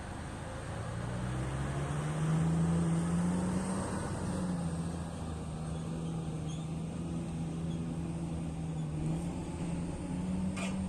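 Heavy diesel engine of mining earth-moving machinery running under load, rising in pitch and loudness over the first couple of seconds, then holding steady. A short click near the end.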